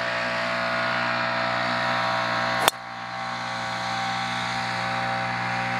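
A driver striking a golf ball off the tee: one sharp crack about two and a half seconds in, over a steady droning hum of several held tones.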